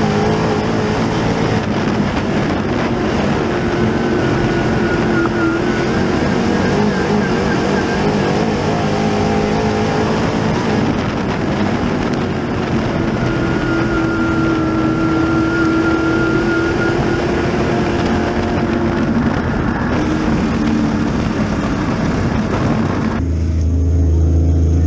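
Dirt late model's 604 crate small-block V8 running at racing speed, heard from inside the cockpit, its engine note rising and falling as the car goes around the track. About 23 seconds in it cuts to a low, steady rumble.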